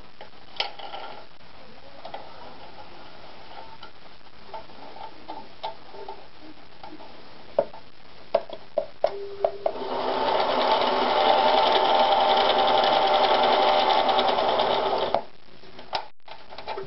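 AEG NM 1800 sewing machine winding a bobbin. Several sharp clicks come as the bobbin winder is set, then the motor speeds up and runs steadily for about five seconds before stopping suddenly.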